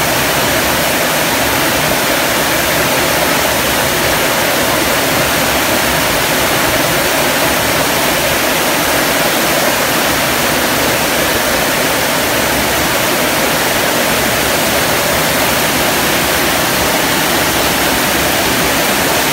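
Heavy tropical downpour pouring onto corrugated metal roofs: a loud, steady, dense hiss of rain with no letup.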